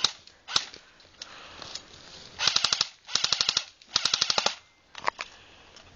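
Airsoft gun firing three short full-automatic bursts, each a rapid, even clatter of shots lasting about half a second, with a few single sharp clicks before and after.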